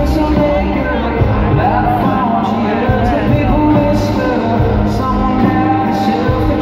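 Live rock band playing: a male lead voice singing over guitars, bass and drums, heard from the audience.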